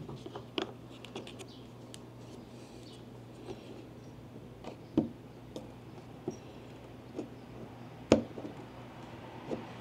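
Scattered light clicks and knocks of small objects being handled, the sharpest about eight seconds in, over a steady low hum.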